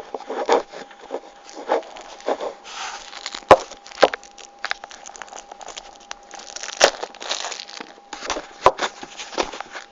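A snack wrapper being torn open and handled: irregular crinkling and crackling rustles with several sharp snaps.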